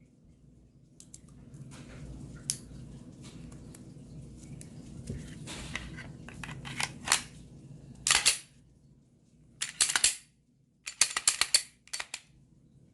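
Glock 23 pistol being reassembled after cleaning: a series of metallic clicks and short sliding scrapes as the parts go back together, with a quicker run of clicks near the end.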